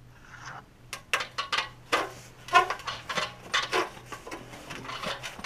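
An aluminium ladder clanking and knocking under a man climbing down it: a string of irregular sharp metallic knocks, one of them ringing briefly.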